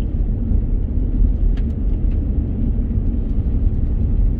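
Vehicle driving on a gravel road: a steady low rumble of tyres on gravel and engine, with a couple of faint ticks about one and a half and two seconds in.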